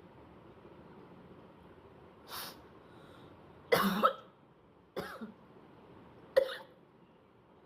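A person coughing and hawking to clear the throat: four short harsh bursts, a soft one about two seconds in, the loudest a double cough near four seconds, then two more.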